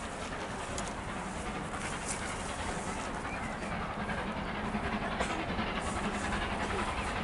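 Distant DR Class 52 two-cylinder steam locomotive working hard under full steam, its exhaust chuffing in a breathy rhythm and slowly growing louder as it approaches.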